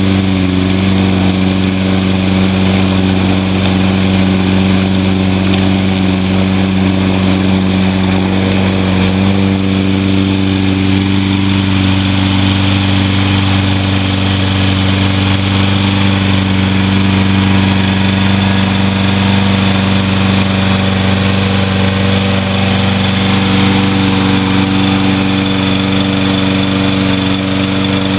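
Briggs & Stratton 190cc single-cylinder engine on a Toro Personal Pace walk-behind mower running steadily, its pitch shifting slightly a couple of times. It is running again after being revived with carburetor cleaner following a long sit on stale gas.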